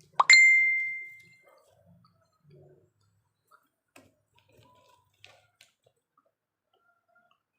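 A single sharp clink of hard tableware, glass or ceramic, with a clear ringing tone that dies away over about a second. It is followed by faint, scattered small mouth and eating clicks.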